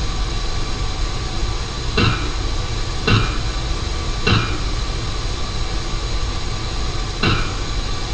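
Hammer blows on a manhole cover, picked up through a fiber-optic cable by a distributed acoustic sensing system and played back as sound, over a steady hiss. There are three strikes about a second apart, a pause, then a fourth strike near the end, the start of the next group of three.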